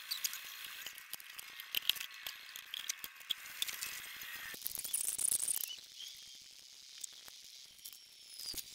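Scattered light metallic clicks and taps from hand tools and engine parts being handled, over a steady hiss, with a brief louder hiss about five seconds in.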